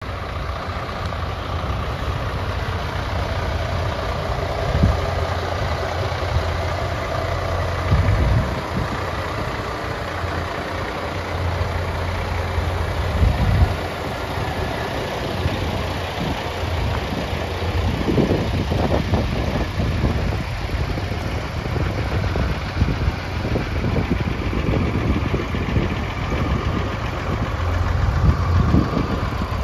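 International ProStar's Maxxforce diesel engine idling steadily, with occasional louder low rumbles.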